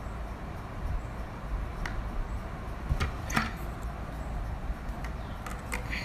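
Plastic vacuum-cleaner attachments being handled and set down: a few short plastic clicks and knocks, two close together about three seconds in, over a low handling rumble.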